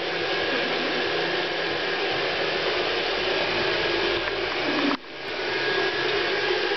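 Handheld hair dryer blowing steadily close by, an even rushing whir with a faint steady whine in it. The sound drops sharply about five seconds in and builds back up within a second.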